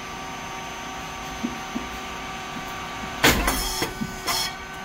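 Rice cake puffing machine running with a steady hum from its hydraulic motor, pump and fan, with a few light clicks. A bit over three seconds in comes a loud sudden burst with a hiss as a cycle of rice cakes pops out of the heated moulds, followed about a second later by a second, shorter burst.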